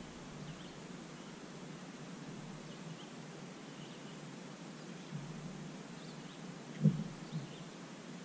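Faint bird chirps over quiet lakeside ambience, with a single soft knock about seven seconds in.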